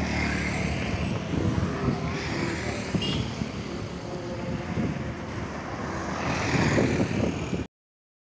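Road traffic passing: a truck and a motor scooter running by on a two-lane road. The noise swells near the end and then cuts off suddenly.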